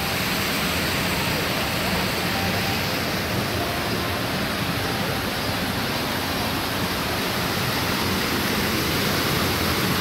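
Steady rushing and splashing of water from a small artificial rock waterfall spilling into a pool.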